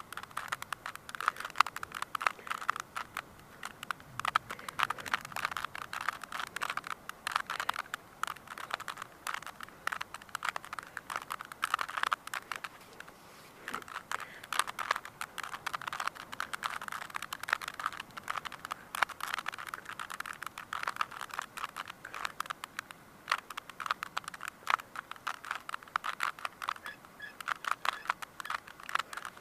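Plastic Rubik's Cube layers being twisted over and over, sped up in a time lapse: a dense, unbroken run of quick clicks and rattles.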